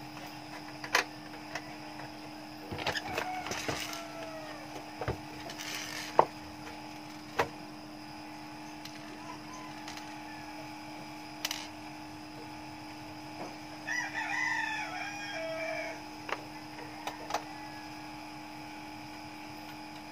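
Screwdriver and screws clicking against the metal case of a Pensonic DVD player as its cover is screwed shut, with a few sharp clicks. A rooster crows in the background twice, a few seconds in and again about two-thirds of the way through.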